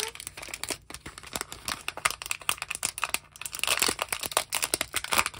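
Clear plastic shrink wrap on a small trading-card binder crinkling and crackling as fingers work it open, the crackle busiest a little past halfway.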